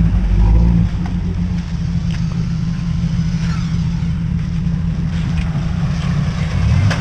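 Vehicle engines running with a steady low rumble, a little louder in the first second, as a stuck two-wheel-drive truck is pulled out of a creek on a recovery cable.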